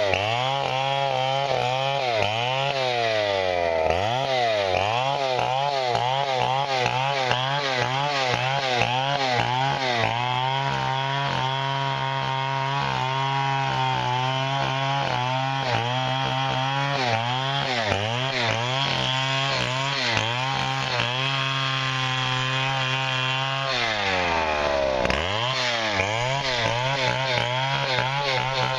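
Engine-driven saw cutting timber, its engine running steadily under load. Twice the engine pitch drops sharply and climbs back: about four seconds in, and again a few seconds before the end.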